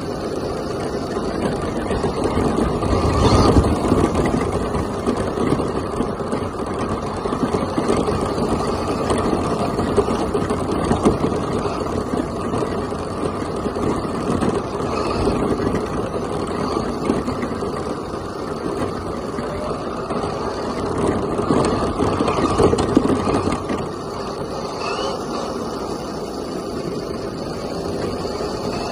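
Traxxas Stampede RC monster truck driving along a paved road, heard from a camera mounted on its body: a steady rumble of its motor, drivetrain and tires that swells louder a few seconds in and again near the twenty-two-second mark.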